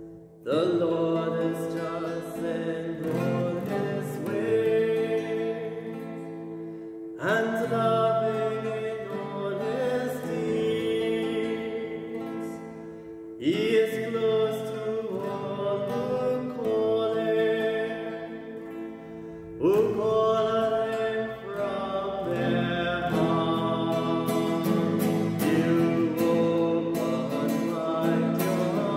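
A man singing a slow church song to his own classical guitar accompaniment, in phrases that begin about every six seconds over strummed and sustained chords.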